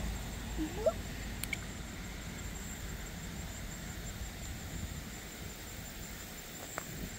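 Quiet outdoor background: a steady low rumble, a short rising chirp about half a second in, and a few faint clicks.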